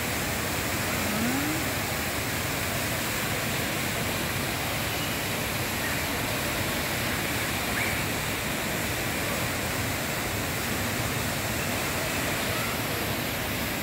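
The Rain Vortex, a tall indoor waterfall pouring from the glass dome into a pool, giving a steady, even rush of falling water.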